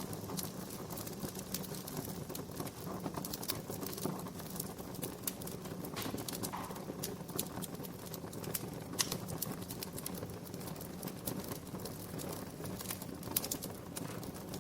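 Wood fire crackling: irregular sharp pops and snaps over a steady low rumble, with a louder pop about nine seconds in and another near the end.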